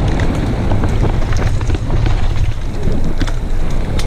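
Wind buffeting the microphone of a camera on a mountain bike descending a gravel trail at speed, over the rumble of the tyres and frame. Scattered sharp clicks come from stones and the bike's chain rattling.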